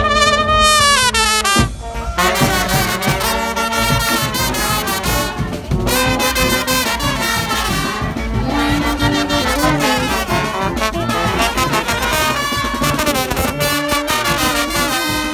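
A charanga, a Spanish festive street brass band of trumpets and saxophones, playing live and loud. A held chord breaks off about a second and a half in, then the band strikes up a fast, rhythmic tune.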